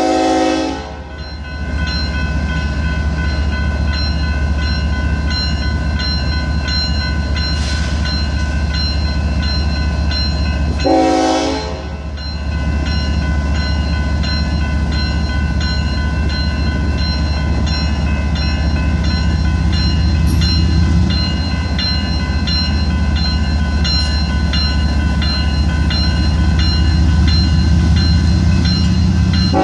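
Diesel freight locomotive horn sounding for a grade crossing: a chord that ends about a second in, then one short blast about eleven seconds in. Between and under the blasts, the crossing's warning bell rings steadily over the low rumble of the diesel locomotives as the train approaches.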